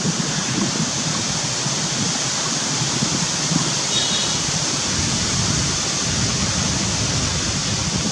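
Wind buffeting the microphone: a steady rushing hiss with a low, fluttering rumble.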